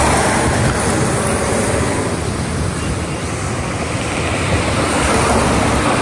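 A city bus and a car passing by on the road, engine rumble and tyre noise loudest at the start and fading through the middle, then rising again near the end as more traffic approaches.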